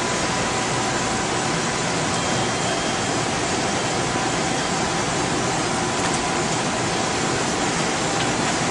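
Steady machine and ventilation noise from fans and equipment, an even rushing hiss with two faint, steady whining tones running through it.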